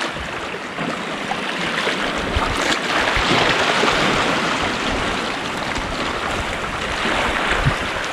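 Small sea waves washing and breaking over shoreline rocks, a steady wash that swells to its loudest a few seconds in and then eases.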